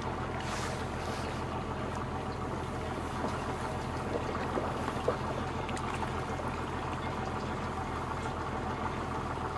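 Old wooden fishing boat's inboard engine running steadily under way, a low even drone, with water washing along the hull and a light knock about five seconds in.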